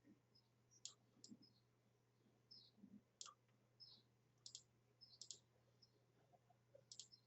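Faint computer mouse clicks, scattered irregularly, several in quick pairs, over a faint steady low hum.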